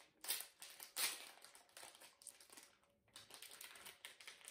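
Clear plastic packaging crinkling and rustling in the hands as it is unwrapped, in irregular spells with a short lull about three seconds in.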